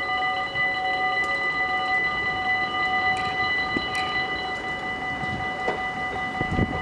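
Dutch automatic level-crossing warning bells ringing steadily as the half-barriers come down.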